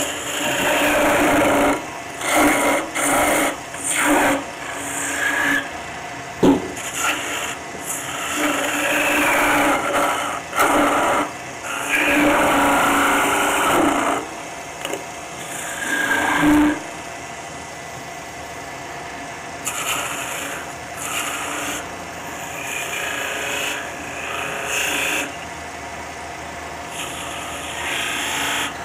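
Turning tool cutting maple spinning on a wood lathe, in a series of short, irregular shaving strokes, with the faint hum of the lathe underneath. The cuts grow sparser and quieter after about two-thirds of the way through.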